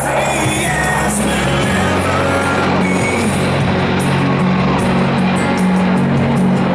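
Rock music with a sung vocal over a steady bass line.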